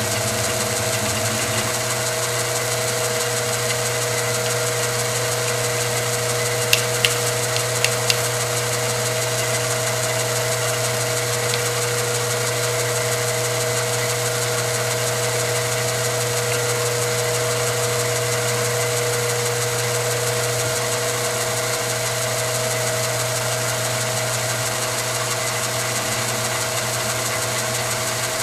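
Milling machine running steadily, its end mill cutting down through the wall of a metal tube, with a steady whine over a low hum. A few sharp ticks come about a quarter of the way in.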